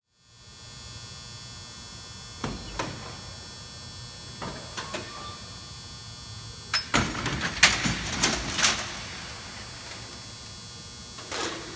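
Metal knocks and clatter of a wheeled steel cart loaded with a pipe-threading power machine as it is pulled out of a cargo van, with scattered knocks at first and a loud burst of clatter in the middle as it comes out onto the floor. A steady hum runs underneath.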